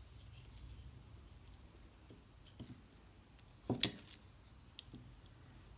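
Folding knives being handled: a few soft clicks and knocks, with a louder sharp double click a little under four seconds in.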